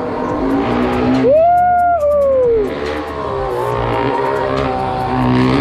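A small engine running, revving up sharply about a second in, holding briefly, then falling back to a lower running note.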